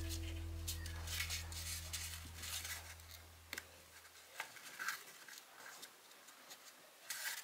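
Brown origami paper rustling and crinkling as it is folded and creased by hand, in soft scattered crackles and ticks. A held low musical note fades out over the first few seconds.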